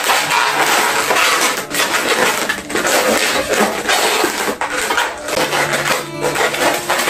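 Latex modelling balloons rubbing and squeaking against each other and against the hands as they are twisted and locked together, a dense run of scratchy rubbing noises. Background music shows through near the end.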